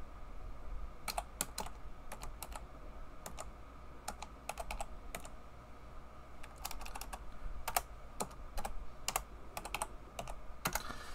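Typing on a computer keyboard: irregular runs of keystroke clicks with short pauses between them, over a low steady hum.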